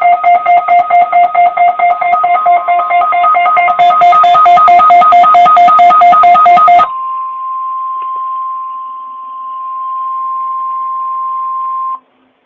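Weather radio alert alarms beeping in rapid, even pulses, with a second beeping layer joining partway through. About seven seconds in they give way to the steady 1050 Hz NOAA Weather Radio warning alarm tone, which holds for about five seconds and cuts off abruptly, marking the start of the weekly test.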